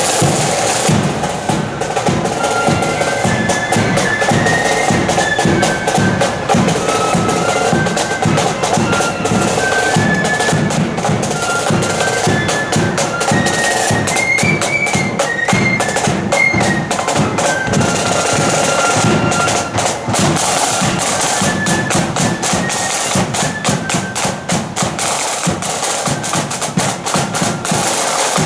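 Marching flute band playing a tune: high flutes carry the melody over rapid side-drum rolls and steady drumbeats.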